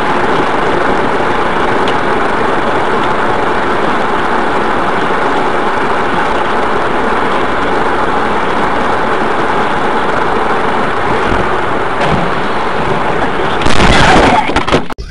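Loud, steady road and engine noise from a moving vehicle, then a louder crash of a collision near the end.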